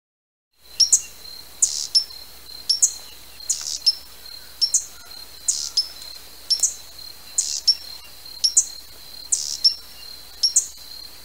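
Hummingbird giving repeated sharp, high chip calls, many in quick pairs, about once or twice a second, starting about half a second in. A thin steady high tone runs underneath.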